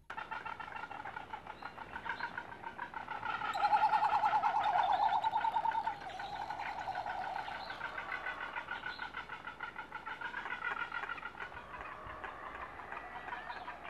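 Male frigatebirds in courtship display, throat pouches inflated, giving many overlapping rapid pulsing, warbling calls. The calls are loudest from about four to six seconds in.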